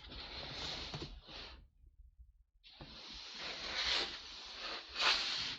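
Close rustling and shuffling noise as a body shifts against fabric, in two stretches with a short quiet gap about two seconds in.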